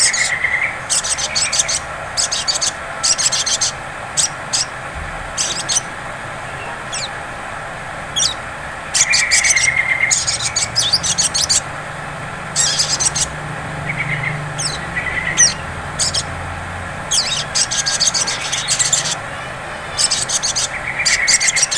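Sunbird chattering: short bursts of rapid, very high trills repeated every second or so, with a few thin sliding whistles and lower chirps between them. It is the excited 'ngleper' chatter used as a lure call to set other sunbirds singing.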